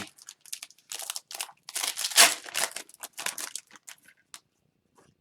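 Foil hockey-card pack wrapper crinkling and rustling as packs and cards are handled, loudest about two seconds in, then dying down to a few light ticks.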